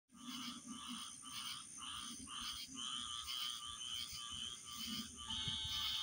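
Night chorus of frogs chirping, a rhythmic chirp repeating about two to three times a second over a steady high hum. Near the end a higher, held note joins in.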